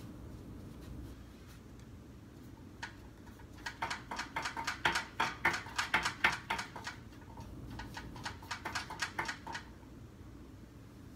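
Paintbrush dabbing and scrubbing paint onto a canvas. A quick run of short scratchy strokes, about four a second, starts about three seconds in and stops shortly before the end, over a low steady room hum.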